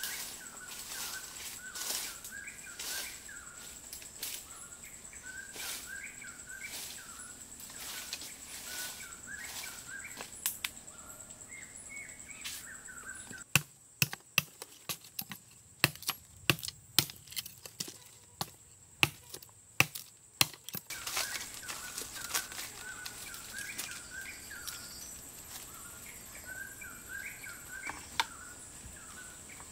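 Repeated sharp taps and knocks, louder and more spaced out through the middle of the clip, over small birds chirping and a steady high-pitched whine.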